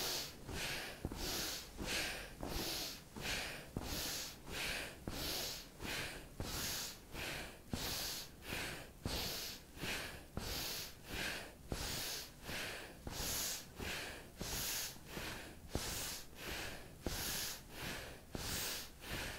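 A person breathing rapidly through the nose in a breath-work exercise: quick, forceful sniffing breaths in and out in an even rhythm, about three every two seconds.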